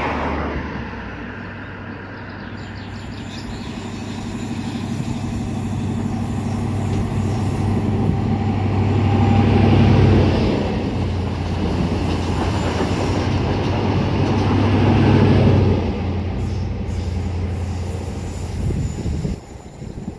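Diesel locomotive engine running as the locomotive moves, a steady low engine note with rail noise. It grows louder about halfway through, and again a few seconds later.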